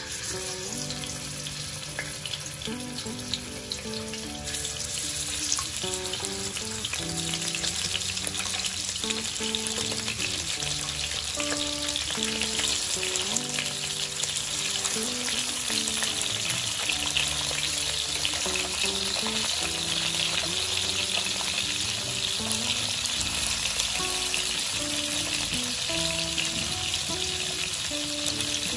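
Pork ribs sizzling as they fry in hot oil in a nonstick wok. The sizzle grows louder over the first several seconds as more pieces go into the pan, then holds steady. Background music plays underneath.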